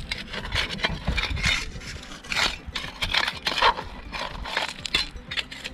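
A small all-in-one folding camp shovel digging into river-bed gravel and soil, its metal blade scraping and grinding through stones and grit in irregular strokes.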